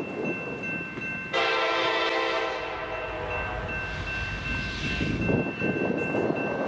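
Diesel locomotive air horn sounding one long blast, starting suddenly about a second in and fading out around five seconds in, over the rumble of an approaching loaded coal train.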